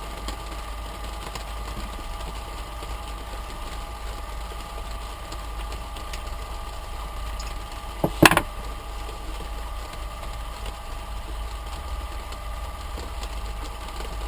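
Small electric blower fan running with a steady motor hum. About eight seconds in there is a short, loud double knock.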